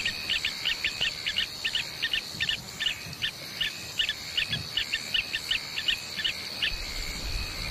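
Bush ambience: a bird calling in quick, evenly repeated short chirps, about three a second, that stop near the end, over a steady high-pitched insect drone.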